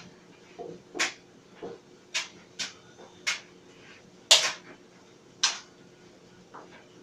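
Clothes dryer running with a faint steady hum while the tumbling load clicks and knocks against the drum at irregular intervals, about eight times; the loudest knock comes a little past four seconds in.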